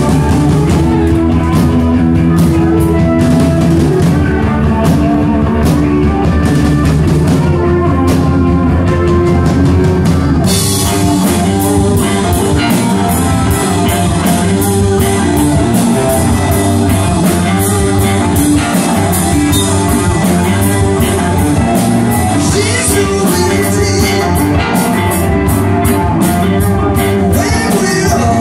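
Live rock band playing loudly, with electric guitars, bass and drum kit; the sound gets brighter and fuller about ten seconds in.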